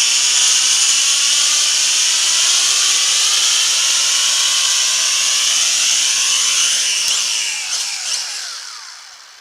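W606-5 Flanker toy quadcopter's motors and propellers whining steadily in flight. About seven seconds in, the pitch drops and the whine winds down and fades as the quad lands and its motors stop.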